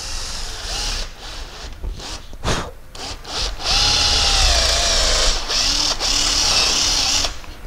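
Cordless drill with a twist bit boring a dowel hole into a piece of wood, starting and stopping a few times at first, then running steadily with a high whine for several seconds before it stops near the end.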